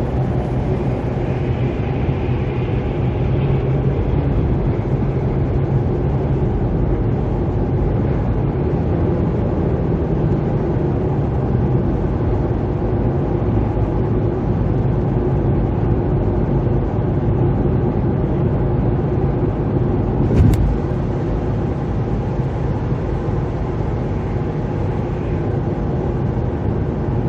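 Steady road noise inside a moving car: the engine's low hum under the hiss of tyres on a wet, slushy road. A single short knock about twenty seconds in.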